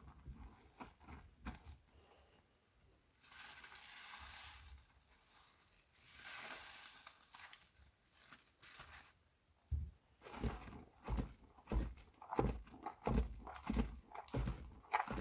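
Soaked glycerin soap plates being handled and washed by hand: scattered small clicks, then a soft swelling hiss of rubbing in the middle, then from about ten seconds in a run of soft crunching presses about two a second.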